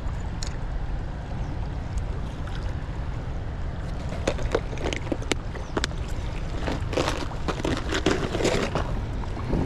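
Wind buffeting the microphone as a steady low rumble, with short clicks and rustling from hands handling fishing line and tackle in the second half.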